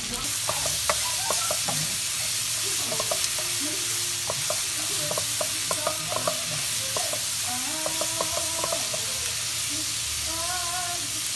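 Chopped shallots, garlic, chillies and palm sugar sizzling in hot oil in a nonstick wok, with the spatula scraping and tapping against the pan as they are stir-fried until cooked and fragrant. The sizzle is steady, with frequent short clicks from the spatula.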